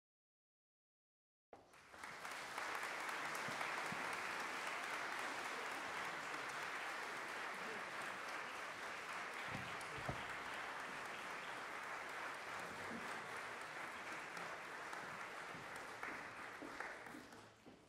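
Audience applauding at the end of a concert band piece: the clapping starts about a second and a half in, holds steady, and fades out near the end.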